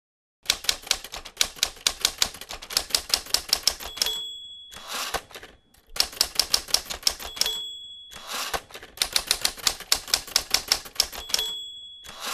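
Manual typewriter typing in three quick runs of keystrokes, about seven strikes a second. Each run ends with a ring of the margin bell and the carriage being swept back for a new line.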